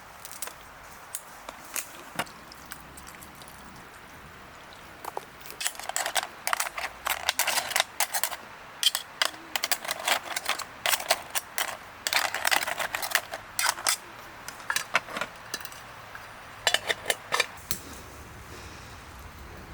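Camp cookware and utensils clattering and clicking in quick, irregular runs, starting about five seconds in and stopping a couple of seconds before the end.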